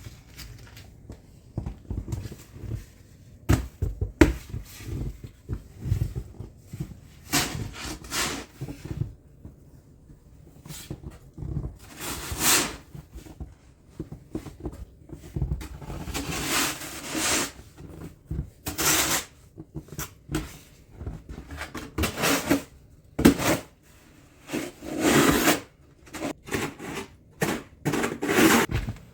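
Snow shovel scraping and scooping packed snow in irregular strokes, with short knocks of the blade between scrapes.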